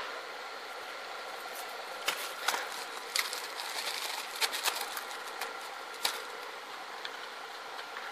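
Clear plastic bag of small fittings being handled: irregular crinkles and clicks, thickest through the middle, over a steady background tone.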